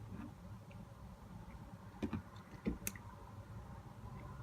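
A few small, sharp clicks and taps from handling tiny iPhone parts and repair tools on a work surface, about two seconds in and twice more near three seconds, over a faint low hum.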